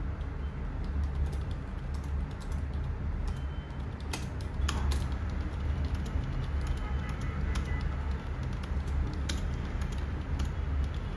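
Typing on an HP 350 Bluetooth keyboard: a quick, uneven run of key clicks, over a steady low hum.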